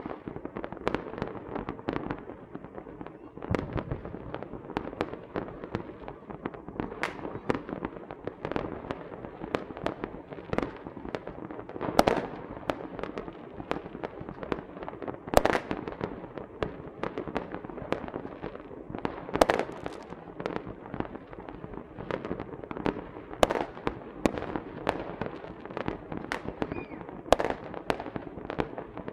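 Small fireworks and firecrackers going off continuously: a dense, irregular run of sharp pops and crackling, with a few louder bangs standing out about twelve, fifteen and nineteen seconds in.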